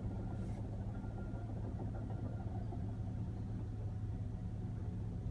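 Excavator's diesel engine running with a steady low drone while the machine lifts a felled tree.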